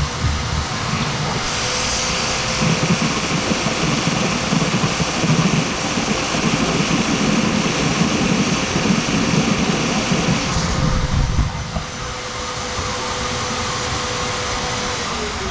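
Vacuum cleaner running, sucking water out of a pipe before it is soldered. It has a steady motor whine and a louder rushing hiss for most of the run. Near the end the motor winds down as it is switched off.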